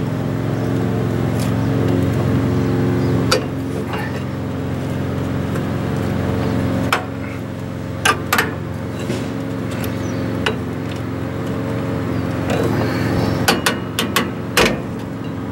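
Scattered sharp metallic clicks and clanks of hand tools on the return springs and shoes of a 1982 Ford F-150's rear drum brake as it is taken apart, with a quick run of clicks near the end. A steady low hum runs underneath.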